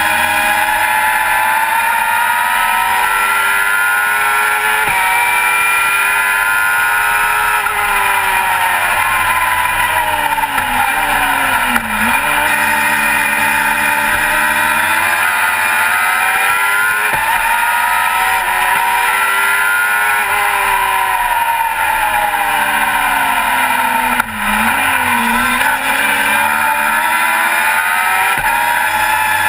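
Onboard sound of a Global GT Light race car's engine at racing speed. The revs sweep up and down, dropping sharply twice, about twelve seconds in and again near twenty-four seconds, then climbing again.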